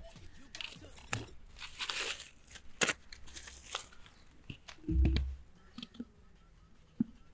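Plastic wrapping being torn and crinkled off a spun sediment filter cartridge, with scattered clicks, over the first four seconds. A dull thump about five seconds in and a single click near the end as the cartridge is handled and fitted into its plastic filter housing.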